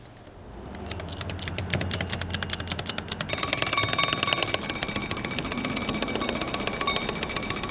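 Wind-up toy monkey drummer beating its toy drum in a rapid, clattering roll, starting about a second in and getting denser. A steady high ringing tone joins about three seconds in.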